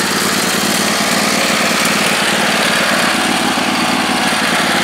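Husqvarna YTH2448 riding mower's engine running steadily.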